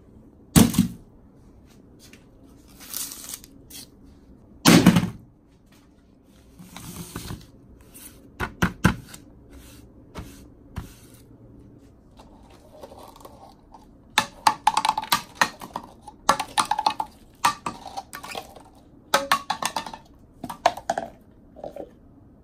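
Objects being set down on a workbench: a couple of heavy thumps, then, over the last third, a quick run of light clattering knocks as clear plastic mixing cups are put down and knocked about.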